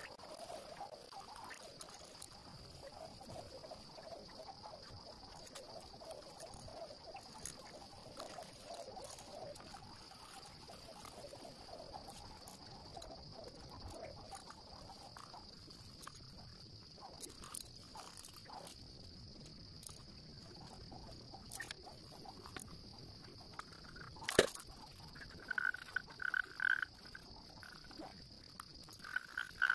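Faint animal calls: a steady high-pitched chirring throughout, warbling calls in the first half, and short calls repeated about twice a second near the end. A single sharp tap comes about 24 seconds in.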